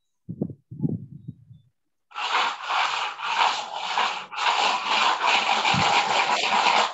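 Loud, rough rasping noise with a faint pulsing, starting about two seconds in and cutting off abruptly; a few faint low thuds come before it.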